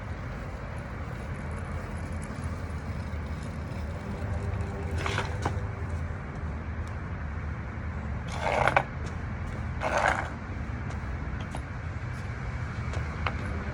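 Low, steady rumbling hum with no clear pitch changes, offered as an unexplained hum heard from the sky. Brief scraping or clinking noises cut in about five seconds in, and twice more near eight and a half and ten seconds.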